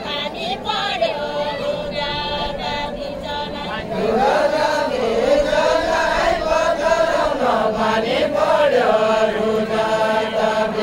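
Unaccompanied group singing of a Nepali Deuda folk song: several voices chant a drawn-out melodic line together. A louder sung line begins about four seconds in.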